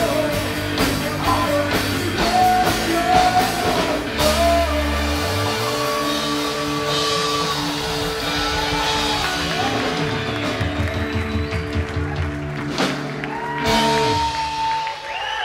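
Live rock band playing: a male lead singer over electric guitars, electric bass and drums. The drums hit steadily for the first few seconds, then the band eases into held chords, with a long sung note near the end.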